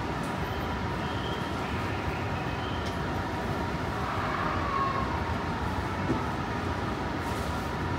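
Steady interior noise of a Tsukuba Express TX-2000 series train car heard from inside the cabin, a constant hum with faint steady tones, and a single click about six seconds in.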